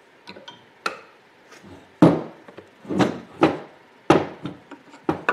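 Steel upper control arm and hand tools being handled on a wooden workbench: about a dozen irregular knocks and clunks, the loudest about two seconds in.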